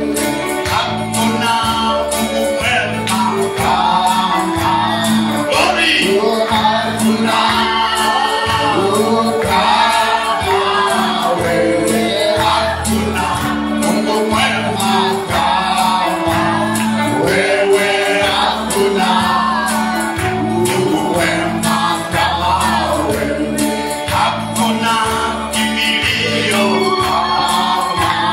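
Live gospel worship music: a group of voices singing together over instrumental backing with a bass line and a steady beat.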